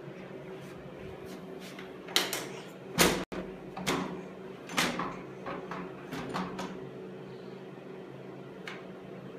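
Hard plastic knocks and clacks from a baby's activity center as the baby bangs and slaps the toys on its tray. A series of sharp, irregular knocks runs from about two to seven seconds in, the loudest about three seconds in.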